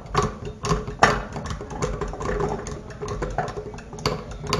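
Liquid soap squeezed from a bottle into a plate, a quick run of repeated squirts about two a second.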